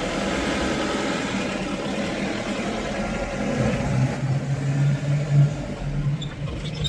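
Car engine and road noise from a moving vehicle: a steady low engine drone under the rush of tyres and air. About halfway through, the engine note drops lower and grows louder.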